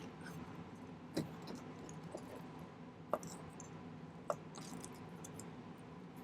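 Small sterling silver rings and a steel hand tool clinking and clicking faintly as the soldered rings are stretched into ovals, with three sharper clicks about a second, three seconds and four seconds in.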